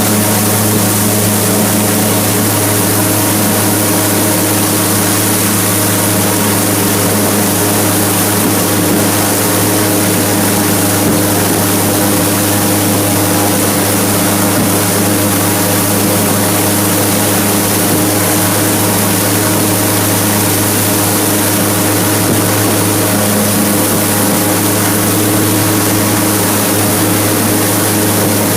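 Airboat's engine and large air propeller running loud and steady at an unchanging speed, heard from on board.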